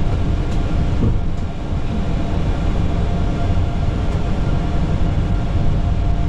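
Steady rumble and hiss on the flight deck of a Boeing 737-800 with its CFM56-7B engines running, as the airliner taxis. A few light knocks come in the first second and a half.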